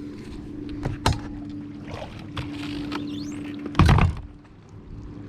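A steady motor hum with a single held tone, broken by a knock about a second in and a loud heavy thump a little under four seconds in.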